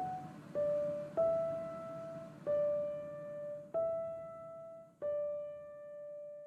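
Background piano music: slow single notes struck one after another, about a second or so apart, each ringing and dying away, the last one held and fading out as the piece ends.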